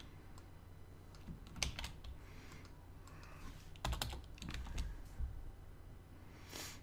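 Computer keyboard keys being pressed in short scattered bursts of a few clicks, over a steady low hum.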